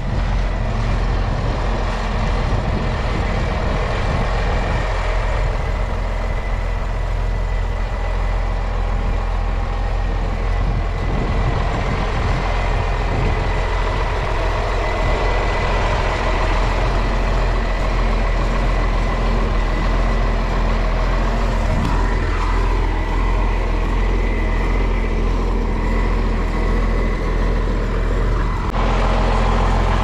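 Farm tractor engine running steadily at work, with a faint steady whine over the low rumble; the sound changes abruptly near the end.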